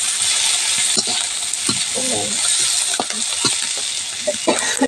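Sliced onions and green chillies sizzling in hot oil in a metal kadhai, with a steady hiss, while a spatula stirs them, scraping and knocking against the pan several times.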